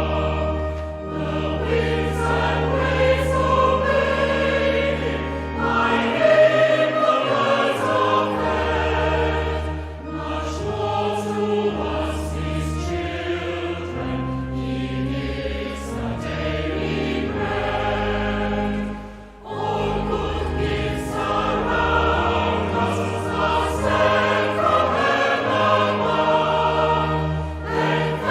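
Choir singing a hymn with instrumental accompaniment and a steady bass line.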